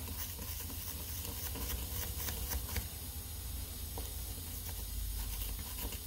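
Fiberglass scratch pen rubbing back and forth on an ignition switch terminal: a faint, steady scratchy rubbing with scattered light ticks, over a low hum. The metal is being scrubbed bright so that it will take solder.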